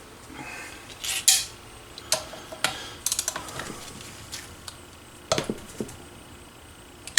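Loose metal engine parts and tools clinking and clanking as they are handled during a small-engine teardown. A series of separate sharp clinks, with one heavier knock about five seconds in.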